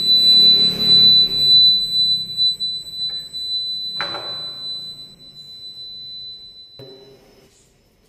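Piezo buzzer of a home-made PIR motion-sensor alarm sounding one steady high-pitched tone, set off by motion as the door opens; it stops about seven seconds in. A knock from the door is heard about four seconds in.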